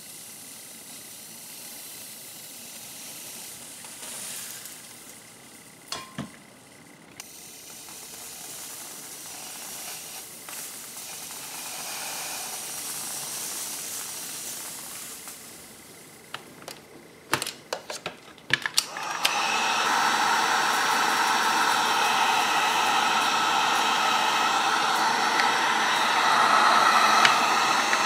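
Faint hissing, then a few sharp clicks and knocks about two-thirds of the way in, after which a hand-held electric heat gun starts up and blows steadily and loudly.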